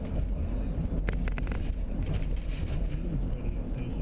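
Steady low rumble of a car interior, with a quick run of clicks about a second in.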